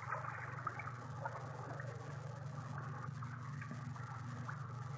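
Faint trickling, bubbling stream water with scattered small ticks, over a steady low hum.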